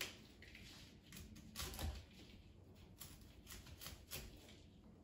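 Kitchen knife cutting broccoli florets from the stems on a plastic cutting board: faint, irregular taps and crunches, with a louder cut just under two seconds in.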